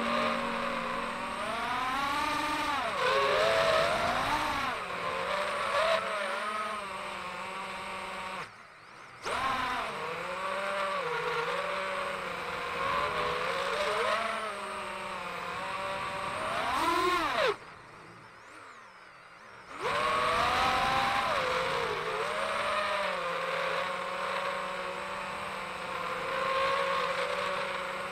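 Brushless motors and three-blade propellers of a 5-inch FPV quadcopter whining, the pitch rising and falling with the throttle. The sound drops away twice as the throttle is cut, first briefly about a third of the way in and then for about two seconds, just after a quick rising and falling sweep.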